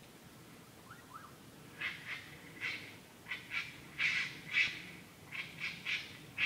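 A series of short, high-pitched animal calls, often in pairs, starting about two seconds in and coming more often toward the end. The recorder suspected a raccoon but wasn't sure.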